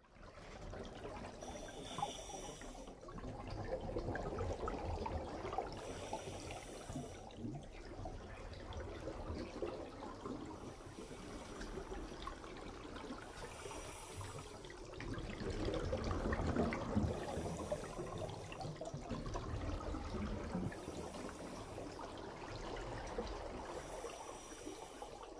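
Underwater ambience: a steady bubbling, gurgling wash of water, with a brief hiss returning every few seconds.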